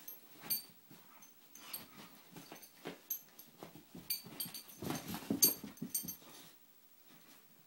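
Two small dogs at rough play in a plush dog bed: a Boston terrier pawing and nudging a Chihuahua puppy, with irregular scuffling and rustling and small dog whimpers. The scuffle is busiest about five to six seconds in, then dies down.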